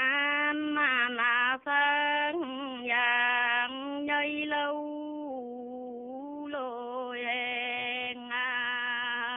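A woman singing a Dao folk reply song alone, without accompaniment, in long held notes with a slight waver and slides between pitches. It grows softer about five seconds in and full again a second and a half later.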